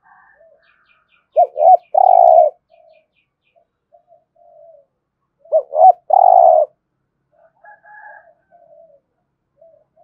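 Spotted dove cooing its song twice, about four seconds apart. Each phrase is two short notes followed by a longer, held coo. Soft, quiet coos fall between the phrases.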